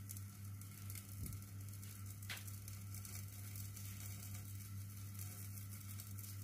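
Faint sizzling of rava pizza batter cooking in oil on a covered nonstick tawa, over a steady low hum, with a faint tick or two.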